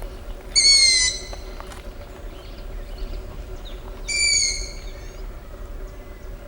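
A bird calling twice, each call a short high whistle about half a second long that slides slightly down in pitch, about three seconds apart, over a faint steady hum.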